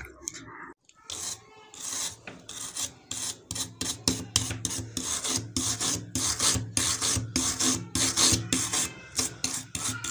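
A flat wooden stick rubbed back and forth over a diecast metal toy car body, rasping off flaking paint in quick repeated strokes, about two to three a second. The strokes start about a second in.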